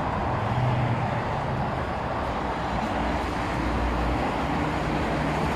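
Steady city street noise of passing traffic, with a low engine hum running under it.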